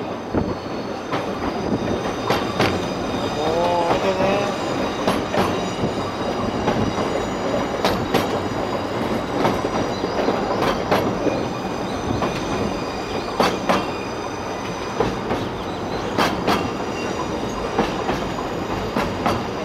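Running noise of an Oigawa Railway Ikawa Line passenger train climbing the Abt rack section, heard from an open window of the car: a steady rumble of wheels on rail with irregular sharp clicks and a faint wheel squeal on the curve.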